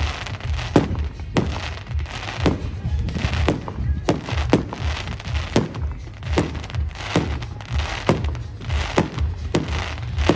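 Fireworks display: a run of sharp bangs about every half second to second, with crackling between them, over music with a steady bass beat.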